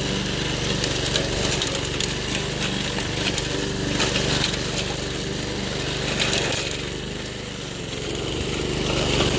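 Toro 53 commercial mower's 5 HP Suzuki engine running steadily under load as the blade cuts through dry grass and small saplings, with a rapid scatter of clicks and snaps from chopped brush and debris hitting the deck.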